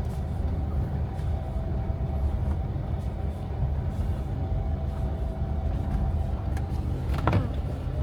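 Car running along a road, heard from inside the cabin: a steady low rumble of engine and tyres with a faint whine, and one sharp click near the end.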